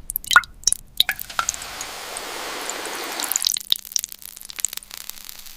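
Water dripping and splashing: a few sharp drips at first, then a steady stretch of running water for about two seconds, then more scattered drips.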